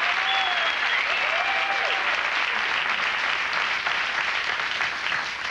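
Theatre audience applauding, with a few rising-and-falling calls from the crowd over the first two seconds. The applause dies away near the end.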